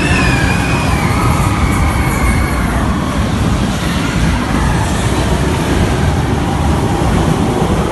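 Mine-train roller coaster running along its track with riders aboard: a loud, steady rumble, with a high wavering squeal over it in the first few seconds.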